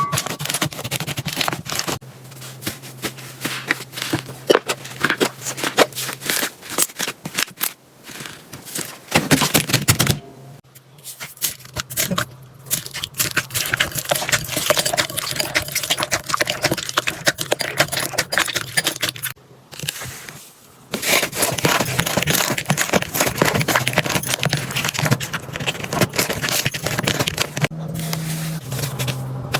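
Slime being pressed, poked and stretched by hand: dense crackling, popping and clicking, with two brief quiet breaks partway through.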